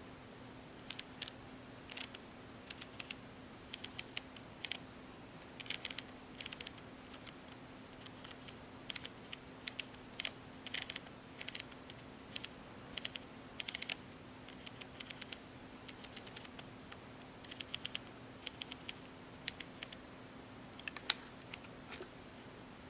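Leica M6 film camera being worked by hand: small mechanical clicks of its controls and shutter, coming in irregular clusters, some as quick runs of several clicks.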